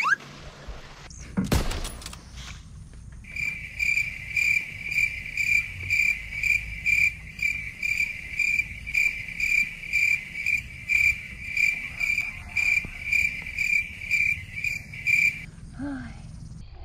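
Cricket-like insect chirping, an even pulse about twice a second, starting about three seconds in and cutting off sharply near the end.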